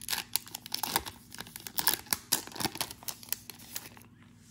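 Plastic wrapper of an NBA Hoops trading-card pack being torn open and crinkled: a dense run of crackles and rips that dies away about four seconds in.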